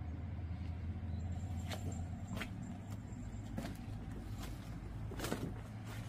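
Footsteps on a dirt and gravel path, about one step every three-quarters of a second, over a steady low rumble.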